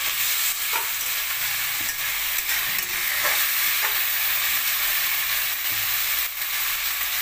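Raw meat frying in hot oil in a metal wok, a steady sizzle, with a few light clinks and scrapes of a metal spoon stirring the pieces.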